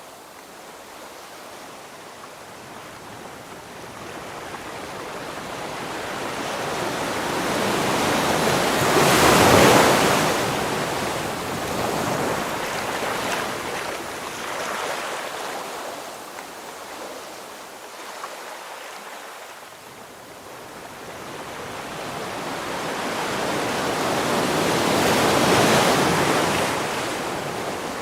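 Ocean waves breaking on the shore: two waves swell and crash, the first about a third of the way in and the second near the end, with quieter wash and retreat between them.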